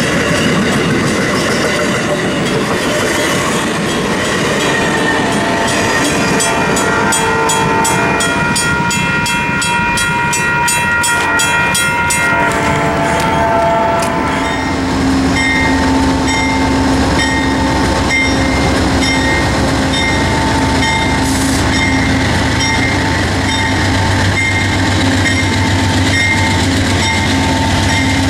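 Amtrak passenger trains: bilevel cars clattering past close by while a horn sounds in long held chords over the first half. Later a diesel locomotive runs steadily with a low hum and a repeating ring.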